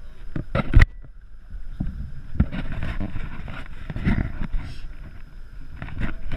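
Wind buffeting the microphone over water moving against the side of an aluminum fishing boat, with several sharp knocks, the loudest about a second in, while a large white sturgeon is held alongside.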